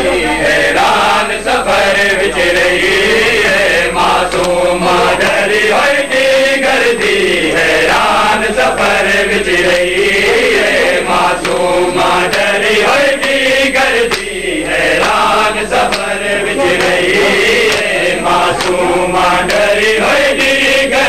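A group of male mourners chanting a Punjabi noha together, with the slaps of chest-beating (matam) striking along with the chant.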